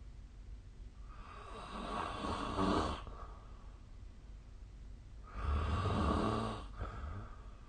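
A person snoring in their sleep: two snores about four seconds apart, each lasting one and a half to two seconds. The first builds up and stops abruptly; the second rises quickly and fades.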